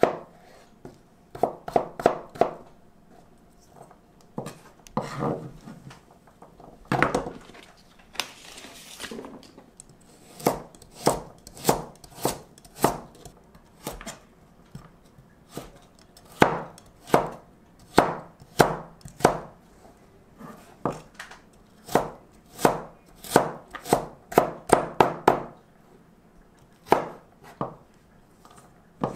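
Chef's knife dicing zucchini and then carrot on a plastic cutting board: sharp knife taps in quick runs of several strokes, with short pauses between runs.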